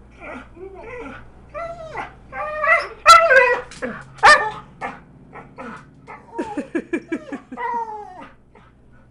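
A dog whining and yipping in short pitched calls, with a few louder barks in the middle and a quick run of short yips later on.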